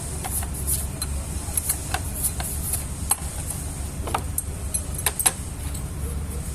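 Metal tools and parts clinking and tapping irregularly during starter-motor repair work, over a steady low hum of running machinery.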